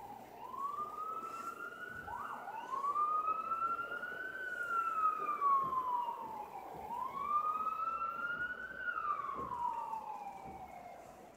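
An emergency vehicle's siren in a slow wail, its pitch rising and falling in long sweeps of a few seconds each, with a quick dip about two seconds in. It fades near the end.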